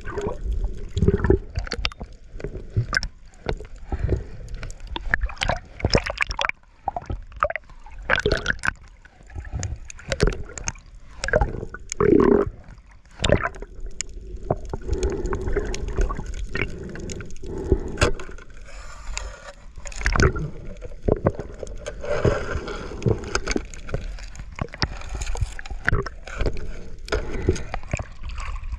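Water sloshing and gurgling around an underwater camera's waterproof housing as a diver swims, with many sharp knocks and clicks throughout.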